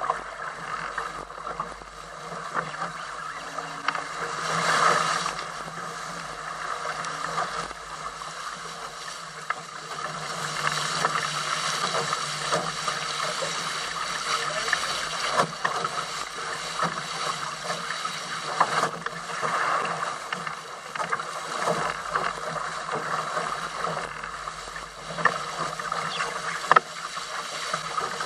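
Water rushing and splashing along the hulls of a Weta trimaran under sail, mixed with wind on the microphone. There is a louder surge about five seconds in and occasional sharp slaps of water against the hulls.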